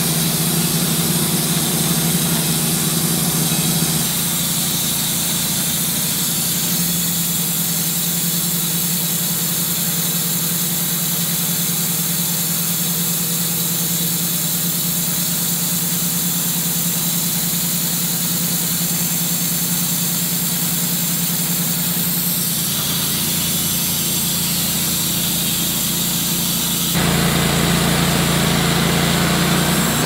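Wood-Mizer band sawmill running on its Kohler engine, the band blade sawing through a white oak log. The drone is steady but shifts a few times and grows louder near the end.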